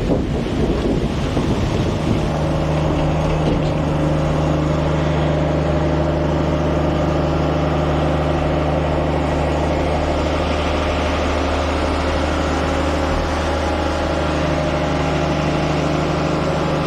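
A large engine running at a steady speed, a constant low hum that settles in about two seconds in over wind and rustling noise.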